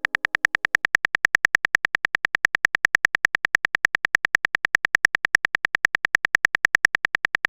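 Rapid, evenly spaced phone keyboard tap clicks, about eight or nine a second, the typing sound effect of a text message being written.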